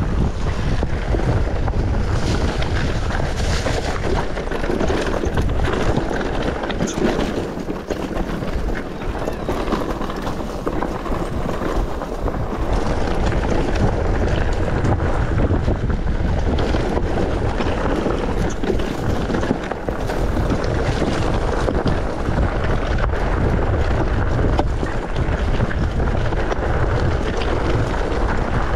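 Mountain bike riding fast downhill on a rough trail: steady wind buffeting the camera's microphone over a low rumble from the tyres, with scattered knocks and rattles from the bike.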